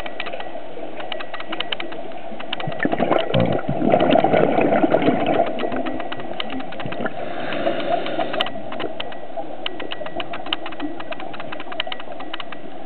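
Underwater sound picked up by a scuba diver's camera: a steady wash of water noise with constant crackling clicks, and a louder burble of exhaled regulator bubbles about three seconds in that lasts a couple of seconds.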